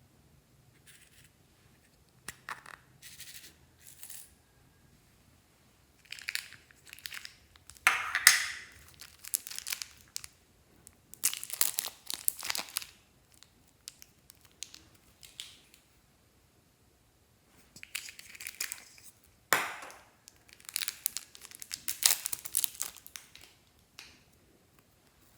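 Glossy slime being worked by hand, giving irregular runs of sticky crackling and crinkling squishes with short pauses between.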